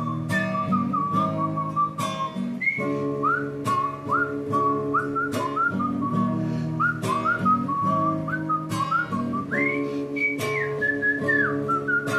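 A person whistling a melody with slides between notes, over a strummed acoustic guitar playing steady chords.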